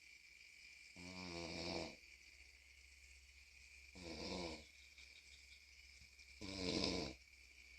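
A sleeping person snoring: three snores spaced about two and a half to three seconds apart, the last the loudest.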